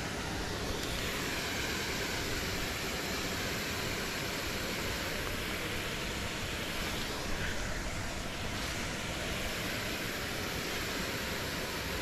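Steady rushing of river water, an even wash of noise with no break.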